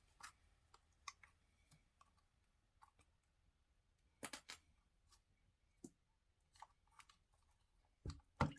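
Faint, scattered clicks and light taps of a washing machine's plastic drain pump filter being handled and cleaned by hand, with a louder pair of clicks about four seconds in and a few more near the end.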